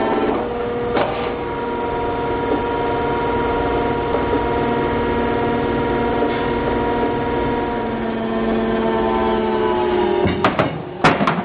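DCR1000 drum crusher's hydraulic pump running with a steady hum; its pitch sags slightly just before the end, then several sharp bangs follow as the press works the drum.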